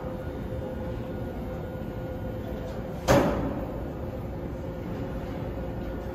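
R160 subway train standing at the platform with its steady hum and a constant tone from its onboard equipment. About three seconds in there is a single sudden loud thump that dies away quickly.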